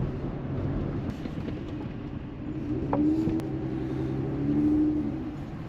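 Minivan driving on a snowy road, heard from inside the cabin: a steady low engine and tyre rumble. A higher engine note swells twice, once about three seconds in and again near the end.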